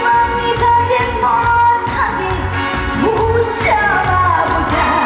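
Live trot song: a woman singing over a band with a steady beat, her held notes bending and sliding between pitches.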